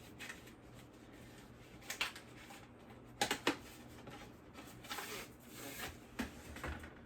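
Handling noises as an LCD writing tablet is picked over: light rustling and scraping with a few sharp clicks, the loudest about two and three and a half seconds in.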